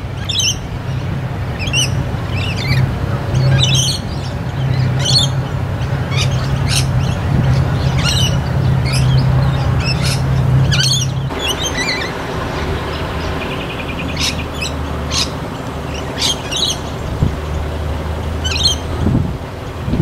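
A flock of rainbow lorikeets (Swainson's lorikeets) calling, short high shrill calls coming every second or so, over a steady low hum.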